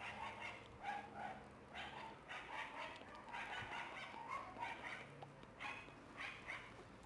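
A three-week-old Shiba Inu puppy whining and yipping in a string of short, high cries, about two a second.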